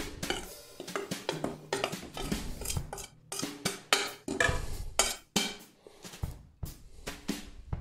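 Metal clinks and knocks as a spoon and a stainless steel bowl tap against the rim of a stand mixer's steel bowl while flour is scraped out, over soft background music.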